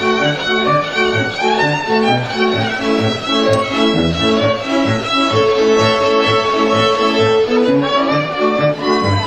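Goral folk string band playing: several fiddles bowing the tune together over a small bowed bass that keeps a steady pulsing beat.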